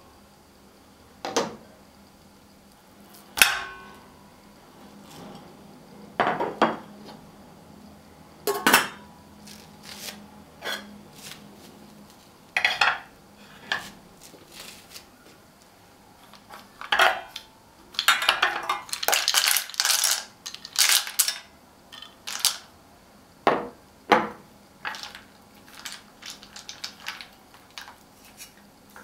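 A stainless steel saucepan and its glass lid being handled: a series of separate metallic clinks and knocks. A busier stretch of clatter and scraping comes a little past the middle, as ingredients go into the pan and are stirred.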